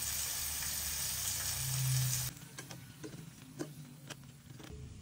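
Flour-coated chicken frying in hot oil: a loud steady sizzle that cuts off abruptly about two seconds in. A fainter sizzle follows, with several light metallic clicks from tongs against the pan.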